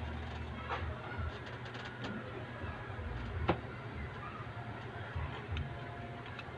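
Handling of a homemade wooden fishing gun, with a few clicks, the sharpest about halfway through, over a steady low hum.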